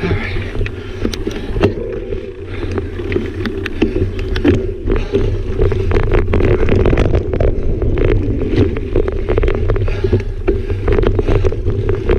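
Mountain bike riding fast down a dirt singletrack: steady tyre and wind rumble with frequent rattling clicks from the bike over bumps and roots.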